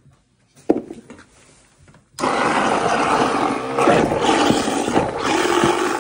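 Half-horsepower garbage disposal starts suddenly about two seconds in, after a single knock, and runs with a loud, steady grinding noise as apple pieces are pushed into its blades with a wooden plunger to crush them for cider.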